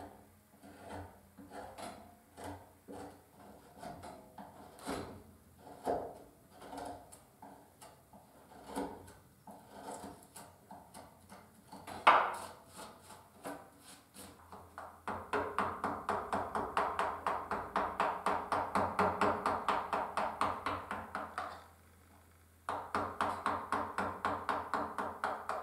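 Hand carving tools cutting into cherry wood: slow, irregular short cuts, a sharp knock about halfway through, then a fast, even run of about three strokes a second that pauses briefly and starts again near the end.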